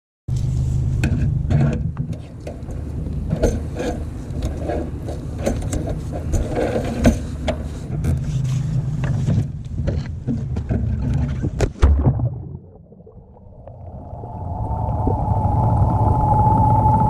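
Boat motor running under a lot of knocking and clattering. About twelve seconds in the sound drops away sharply, then a steady whine and engine hum build back up.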